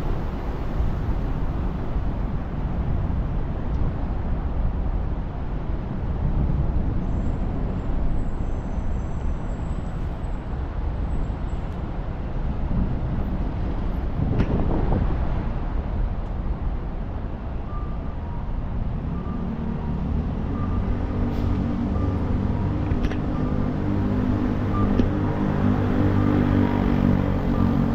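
City traffic on a busy arterial road: steady road noise with a vehicle passing about halfway through. From about two-thirds in, the engine of a heavy vehicle runs close by.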